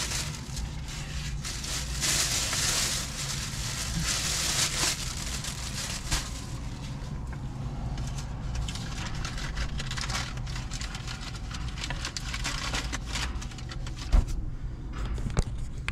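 Close-up eating and handling noises from a fried-chicken slider meal: rustling and crackling for the first few seconds, then scattered small clicks, over a steady low hum. A single knock comes about 14 seconds in.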